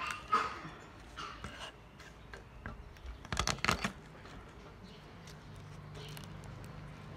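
Kitchen knife tapping and scraping on a bamboo cutting board while chopping garlic cloves, with a quick run of several knocks about three and a half seconds in.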